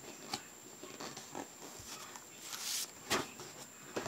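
Light handling sounds of a paper folder being looked through: a few soft taps and clicks, and a short rustle about two and a half seconds in.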